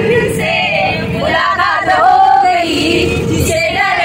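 A group of people singing a Hindi song together, several voices at once.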